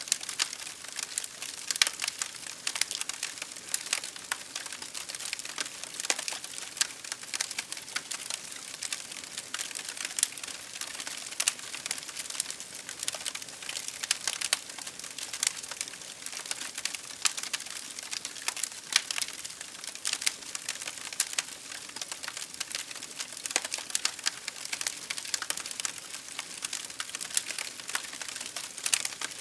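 Campfire crackling: burning firewood gives off a dense run of small, irregular snaps and pops over a soft hiss.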